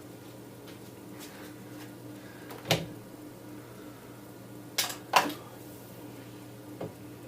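A few sharp clunks and clicks of parts and tools being handled during the UPS repair, about four in all, the loudest just past the middle, over a steady low hum.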